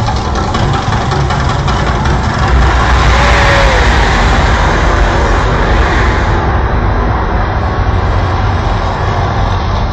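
Mirage volcano show erupting: a loud, deep rumble with the rush of gas flames. It swells into a louder rushing burst from about two and a half to six seconds in as a fireball flares at the volcano's peak, then eases as the flames die down.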